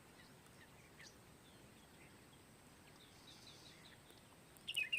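Wild birds chirping faintly over a quiet background: scattered short high calls, a quick run of about six high notes a little past three seconds in, and a louder chirp near the end.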